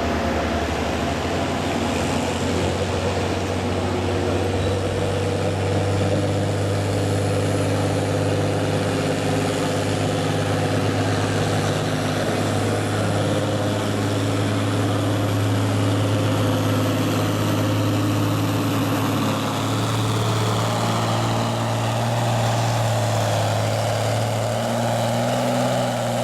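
Farm tractor engine running hard and steady under load, pulling a weight-transfer sled down a pull track.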